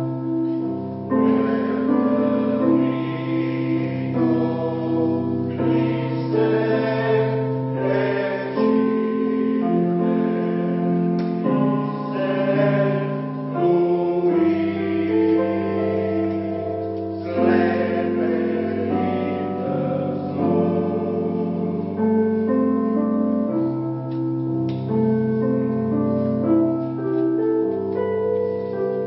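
Polyphonic choir singing a Christmas piece in several parts, holding sustained chords that change every second or two.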